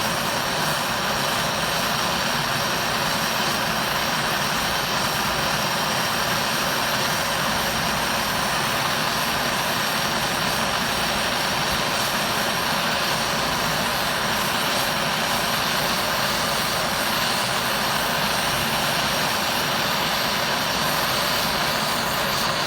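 Small MAPP gas hand torch burning with a steady hiss, its flame heating an aluminum coil to melt aluminum repair rod into a hole.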